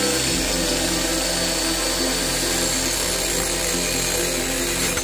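Angle grinder running at full speed with a steady high whine, its disc grinding into a rusty steel pipe and throwing sparks.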